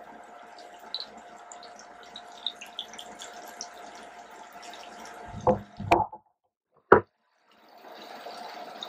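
Catfish fillets deep-frying in hot peanut oil in a skillet: a steady sizzle with scattered crackling pops. About five and a half seconds in come a few loud knocks, then the sound cuts out for about a second, with a single click in the gap, before the sizzle returns.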